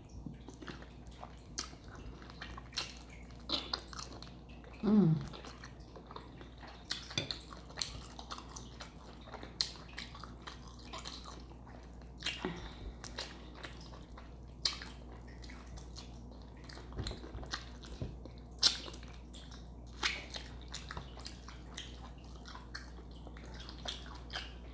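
Close-up wet chewing and lip-smacking of someone eating a seafood boil, with many short, sticky clicks scattered through. There is a brief low vocal sound about five seconds in.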